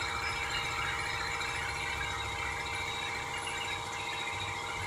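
Turret milling machine cutting a hole in a metal plate: a steady high squeal from the cutter in the metal over the low hum of the machine.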